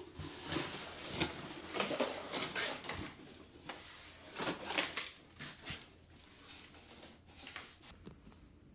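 Large cardboard box flaps being pulled open and the packing inside handled: irregular scraping and rustling of cardboard with a few sharp clicks, dying away near the end.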